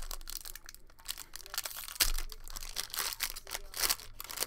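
Foil wrapper of a trading-card pack crinkling and crackling as it is handled and the cards are pulled out, with a sharper crackle and a light knock about two seconds in.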